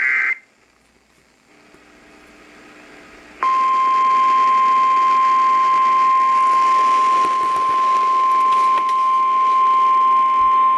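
The tail of an Emergency Alert System digital data burst cuts off right at the start, leaving a few seconds of faint radio hiss. About three and a half seconds in, the NOAA Weather Radio 1050 Hz warning alarm tone begins: one loud, steady, single-pitch beep that holds on, signalling that a warning broadcast is about to follow.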